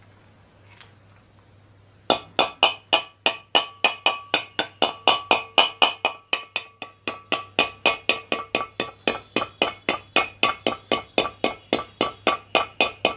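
Hammer tapping a greased ball bearing into place on a ceiling fan's shaft or housing. About two seconds in it starts a steady run of sharp metallic taps, roughly three to four a second, each with a short ringing tone.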